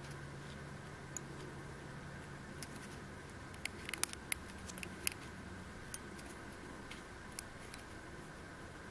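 Faint, scattered clicks and ticks of fly-tying handwork, a bodkin needle working at a foam hopper on a hook in the vise, bunched about four to five seconds in, over a steady low hum.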